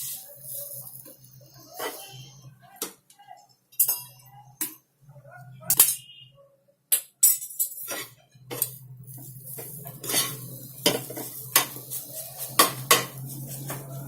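A metal spoon or spatula stirring green-pea kachori stuffing in a pan, clinking and scraping against the metal at irregular moments, with a faint steady hum underneath.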